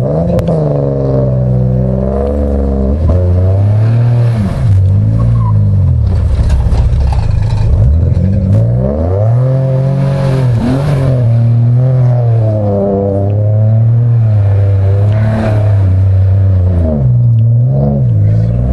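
Car engine revving hard through circle work on dirt, the revs rising and falling. They drop back around four and seven seconds in, are held high for a long stretch, and drop back again near the end.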